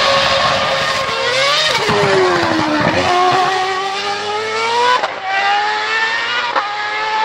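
Formula 1 car engine at full throttle as the car passes and pulls away. Its high pitch drops about two seconds in, then climbs through the gears, with sharp drops at upshifts about five and six and a half seconds in.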